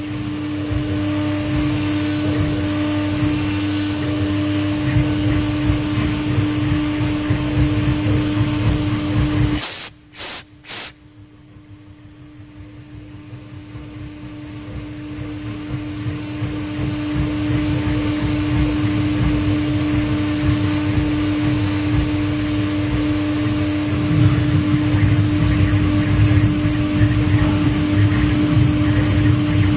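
Spindle of a CNC engraving machine running with a steady hum while its cutter mills a chocolate slab. About ten seconds in the sound drops out suddenly, with two short bursts, then builds back up gradually over several seconds.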